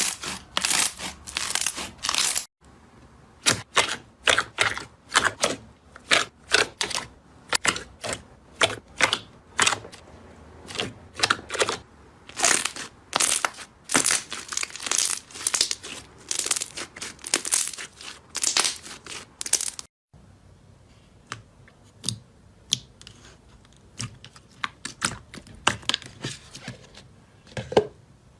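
Slime being worked, making a dense run of sharp crackling pops and clicks that breaks off twice and grows sparser in the last third.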